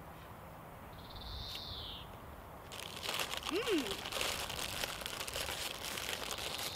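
Plastic candy bag crinkling as it is handled and folded closed, starting about three seconds in.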